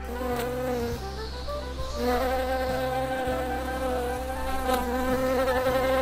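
Honeybee buzzing at a flower: a steady, slightly wavering hum that grows louder about two seconds in.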